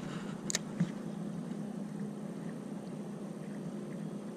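Steady ambient noise on a small fishing boat: a low, even hum under wind and water, with one sharp click about half a second in.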